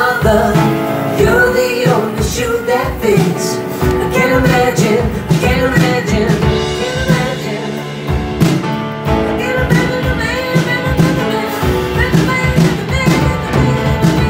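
Live rock band music with a woman singing into a microphone over the band.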